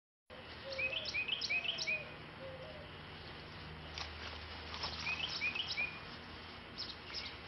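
Birds calling in the open air: two quick runs of short, repeated high chirps, with a few lower notes in the first run, over a steady background hiss and a few faint clicks.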